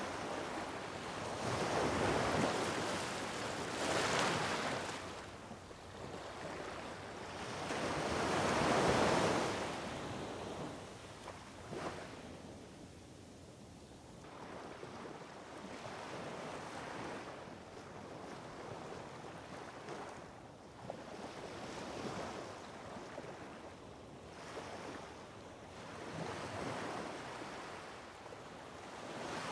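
Sea waves washing with wind buffeting the microphone, swelling loudly twice in the first ten seconds and then settling to a lower, steadier wash.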